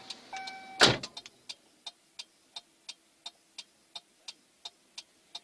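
A car horn gives a short honk, then a loud thump about a second in. After it comes the steady clicking of the car's indicator relay, about three ticks a second, heard inside the cabin.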